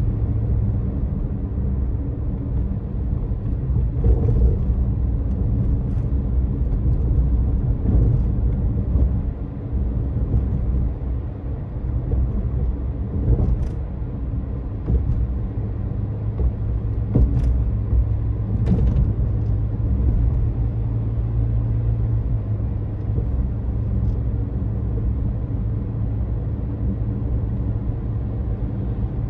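Car driving on the road, heard from inside the cabin: a steady low engine and tyre rumble with a hum, and a few short, light knocks scattered through.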